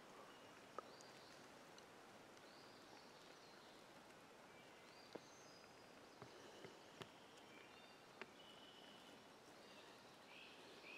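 Near silence with faint bird chirps now and then and a few soft clicks.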